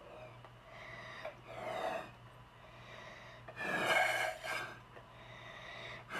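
Puffs of breath blown through a hard drinking straw into a ball of slime to inflate a slime bubble: two long blows, with another starting at the very end.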